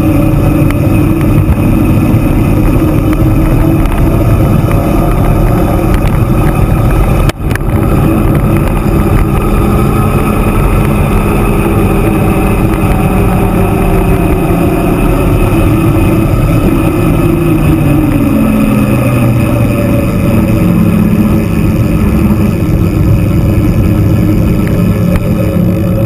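Wind buffeting and tyre noise on the microphone of an action camera riding on an e-mountain bike descending a paved mountain road at speed. The rumble is loud and steady, with a faint hum that drops in pitch about two-thirds of the way through, and the sound cuts out for an instant about seven seconds in.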